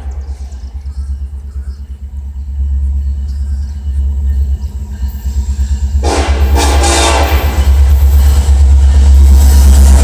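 Norfolk Southern SD70ACe diesel locomotive approaching with a heavy low rumble. It sounds its horn about six seconds in for a second or two, then grows steadily louder as it draws alongside.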